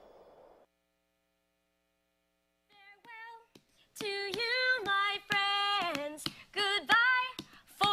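The last of the routine's recorded music fades out, then after a brief silence high-pitched voices in the audience start whooping and cheering, several long calls overlapping and getting louder.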